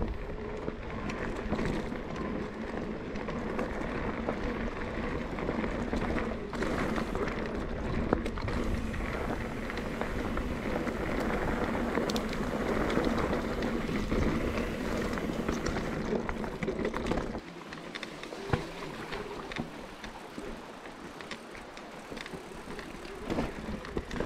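Yeti SB150 mountain bike riding down a rough trail: tyres on dirt and rock, with scattered clicks and rattles from the bike and a low rush of wind on the microphone. About 17 seconds in the low wind rumble drops away suddenly and the riding noise gets quieter.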